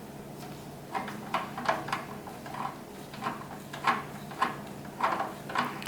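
Screwdriver backing out the small retaining screw of an M.2 solid-state drive on a desktop motherboard: a run of light, irregular clicks and scrapes, several a second.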